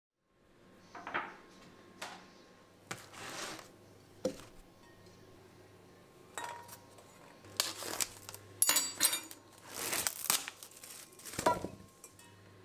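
Kitchen-counter handling sounds: plastic wrap crinkling and enamel and steel bowls clinking, in scattered short bursts that are busiest in the second half.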